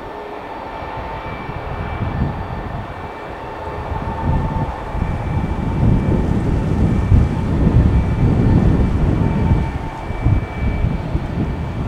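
Boeing 737 airliner's jet engines, a low rumble that grows louder over the first half and stays loud, with a thin steady whine above it.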